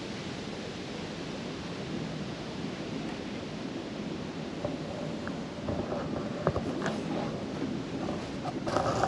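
Steady outdoor ambience, an even hiss and low rumble with no clear single source. A few faint knocks come in the second half, and a short run of clicks near the end.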